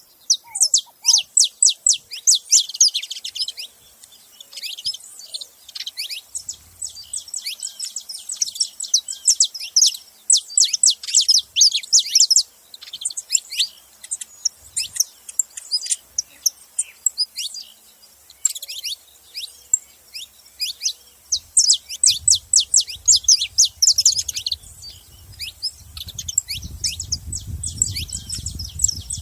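Saffron finches calling at a feeder: a dense run of rapid, high-pitched chirps. A low rumble joins in for the last several seconds.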